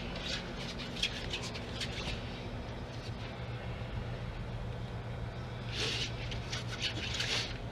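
Short bursts of scratchy rustling and handling noise in two clusters, one at the start and another about six seconds in, over a steady low hum.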